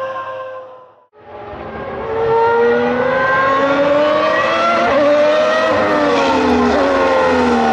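Formula 1 V12 engine fading in about a second in and revving up through the gears, with a brief drop in pitch at a gear change, then falling in pitch near the end.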